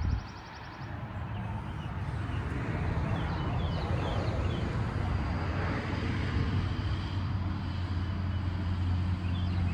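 A vehicle engine's low, steady rumble that builds over the first few seconds and then holds, with birds chirping faintly over it. A short knock comes right at the start.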